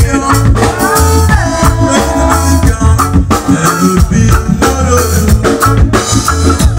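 Live band playing loud amplified music: drum kit, electric guitar and saxophone, with men singing into microphones.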